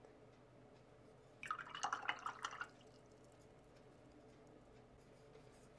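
A brief burst of watery swishing and light clinking about a second and a half in, lasting about a second: a paintbrush being rinsed in a jar of water between colours.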